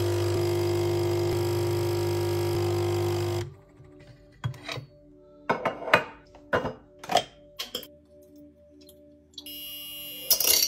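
Nespresso capsule machine's pump buzzing steadily as it brews espresso into a glass cup, cutting off about three and a half seconds in. Then a run of light knocks and clinks as a glass jug and a drink carton are set down on a stone countertop.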